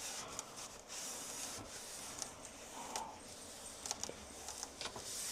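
Scraping and rubbing while working stuck dried residue out of freeze-dryer parts: a steady hissy rasp with scattered light clicks and taps.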